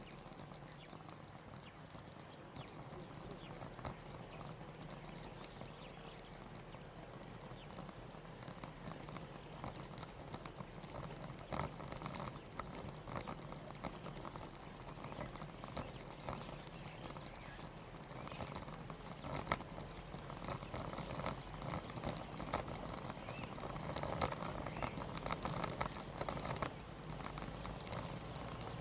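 Footsteps crunching on a dirt or gravel path, irregular and continuing throughout. A faint high chirp repeats about four times a second for the first six seconds and again briefly around ten seconds in.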